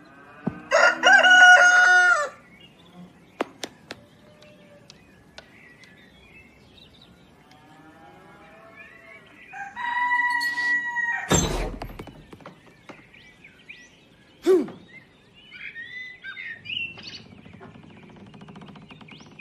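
Rooster crowing once, loud, about a second in, as a cartoon sound effect. Later come scattered small clicks, a second held call-like tone and a sharp thump about eleven seconds in, which is the loudest hit.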